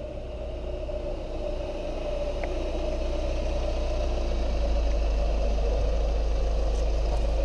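Seat Leon 2.0 TDI common-rail diesel car driving slowly up and pulling in to a stop. Its engine gets steadily louder as it approaches, then holds at idle for the last couple of seconds.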